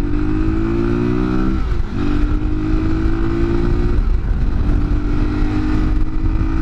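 Motorcycle engine pulling up through the gears into a headwind: its pitch rises, drops twice at gear changes, then holds steady, under heavy wind noise buffeting the microphone.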